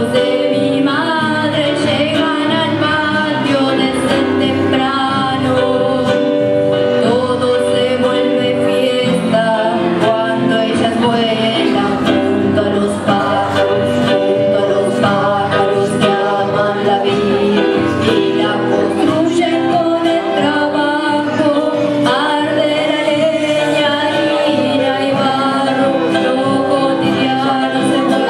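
Live song: a woman singing into a microphone, accompanied by acoustic guitar and electronic keyboard.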